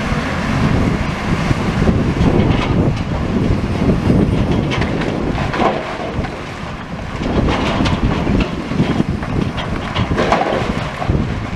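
High-reach demolition excavator tearing down a brick building: the machine's engine running under load, with intermittent crunches and clatter of masonry breaking and falling, and wind buffeting the microphone.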